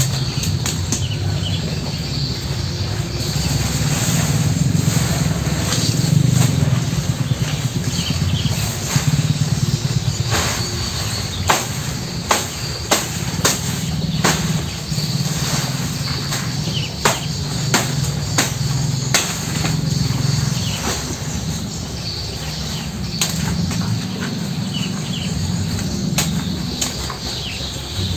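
Cattle-barn ambience: insects buzzing steadily and birds chirping over a constant low rumble, with scattered sharp clicks and snaps, most of them in the middle stretch.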